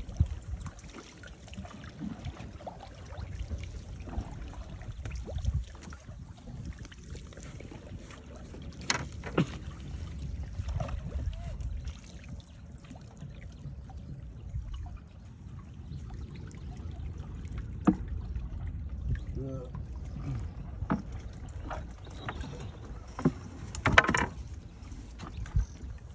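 Small wooden boat being poled along in shallow river water: water sloshing at the hull over a steady low rumble, with scattered sharp wooden knocks, a cluster of them loudest near the end.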